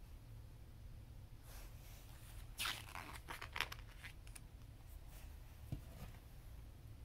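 A graphic novel's paper pages being turned: a short papery rustle and flap, loudest about three seconds in.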